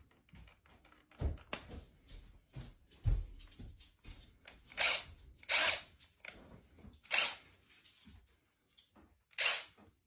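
Handheld cordless drill revved in four short bursts, each about half a second, spread over the second half. A couple of low thumps come first.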